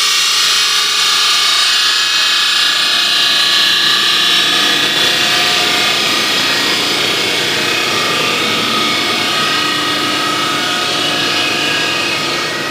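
CNC router spindle cutting steadily: a loud, even high-pitched whine with a grinding hiss.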